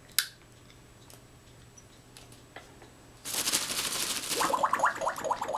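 African grey parrot making a rapid rattling, clicking noise. A single sharp click comes near the start; about three seconds in, a harsh rasp of fast clicks begins and runs into quick repeated chirps.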